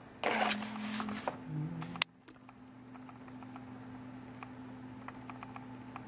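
Camera handling noise: a rubbing rustle for about two seconds that ends in a sharp click, then faint scattered ticks over a steady low hum.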